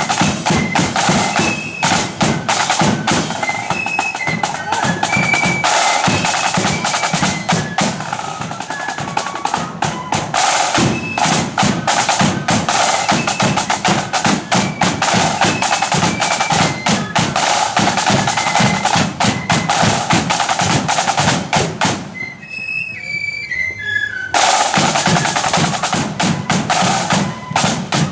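Marching flute band playing: high flute notes over fast snare drumming and a bass drum. About 22 seconds in, the drums drop out for a couple of seconds, leaving a few flute notes, then come back in.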